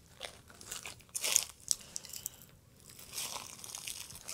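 Footsteps crunching on dry fallen leaves, with a short loud hiss about a second in and a fainter hiss near the end.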